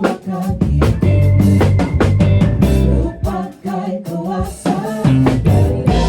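Band music: a song with a drum kit playing a steady beat, bass drum and snare strokes over bass and other pitched instruments.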